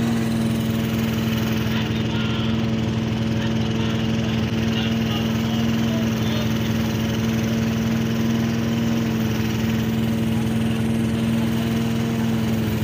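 Small engine running steadily at constant speed, a low, even hum.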